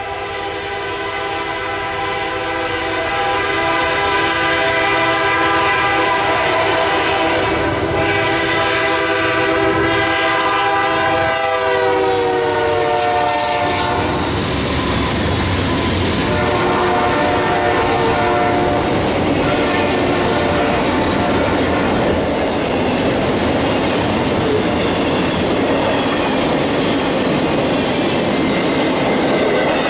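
Freight train led by a GE C44-9W diesel locomotive approaching with its air horn blowing a steady chord. The horn's pitch drops sharply about 12 to 13 seconds in as the locomotive passes, and it sounds again more faintly a few seconds later. After that the rumble and clickety-clack of the trailing locomotives and intermodal well cars rolling over the rails takes over.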